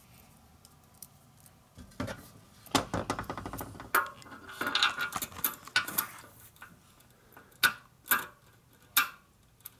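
Small steel parts clicking and clinking as a caged roller bearing and its sleeve are handled and fitted into a Harley-Davidson WLA star hub: a clatter of clicks in the middle, then three single sharp clicks near the end.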